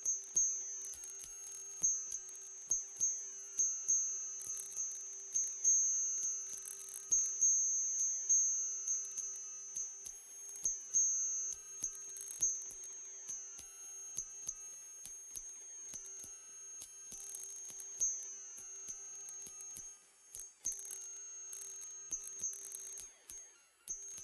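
Steady ultra-high-pitched synthetic tone for tinnitus relief, with a fainter, lower tone beneath it that flickers slightly. The level dips briefly a few times near the end.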